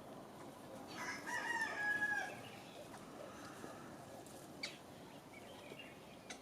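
A bird calling: one drawn-out call of just over a second, starting about a second in and dropping slightly at its end. A couple of short sharp clicks follow later.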